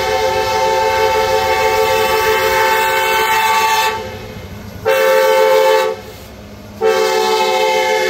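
Diesel locomotive air horn on Norfolk Southern heritage unit 1074 sounding a chord of several tones for a grade crossing: a long blast, a short blast about five seconds in, then another long blast starting about seven seconds in, the closing short-long of the crossing signal.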